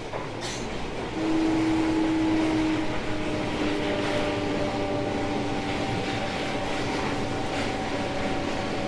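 Odakyu 1000 series electric train running, with the whine of its Mitsubishi GTO VVVF inverter. A steady tone comes in about a second in, and further steady tones of fixed pitch join it over the next few seconds.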